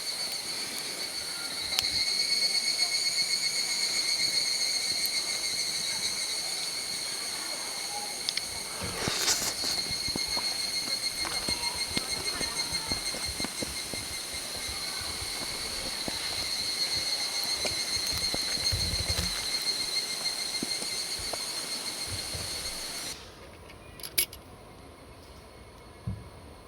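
Insects singing a steady, pulsing high-pitched chirr, with a brief rustle about nine seconds in; the song cuts off suddenly near the end, leaving a quieter background with a couple of clicks.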